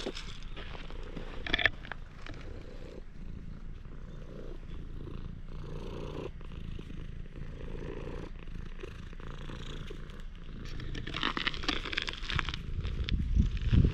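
A cat purring steadily, a low pulsing rumble, as it is stroked. Near the end there is a louder rustling.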